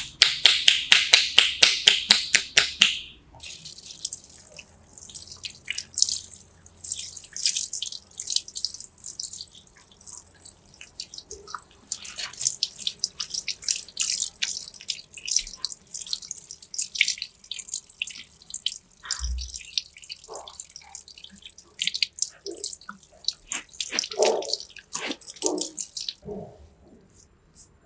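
Fast palms-together chopping strikes on a man's head, about seven sharp claps a second, for the first three seconds. Then a handheld shower sprayer runs water over his hair into a shampoo basin: a steady spattering with drips, which stops near the end.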